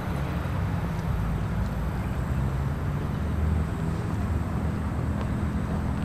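Steady low rumble of city street ambience at night, dominated by traffic, with a few faint ticks over it.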